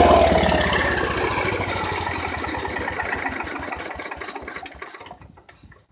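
Wheel Horse garden tractor's 10-horsepower Kohler single-cylinder engine switched off and running down: its firing beats slow and fade away over about five seconds until it stops.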